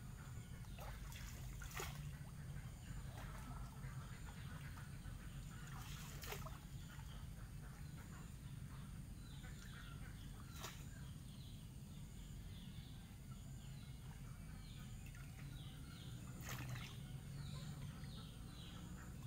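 Faint sloshing and a few short splashes of pond water as a long-handled landing net is worked through it, with birds chirping now and then from about halfway in.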